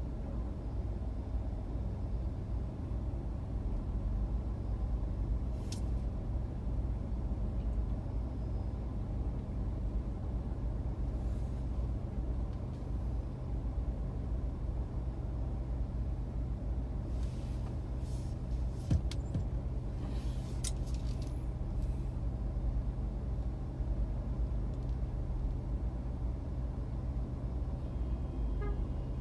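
Steady low rumble of idling vehicle engines in stopped city traffic. A few brief hisses break in, one about six seconds in and a cluster around two-thirds of the way through.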